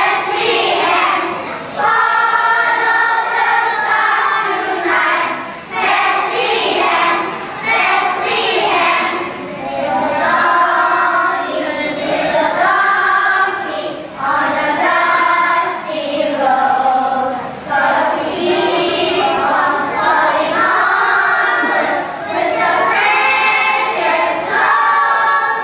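A choir of young children singing a song together in sung phrases of held notes, with short breaks between phrases.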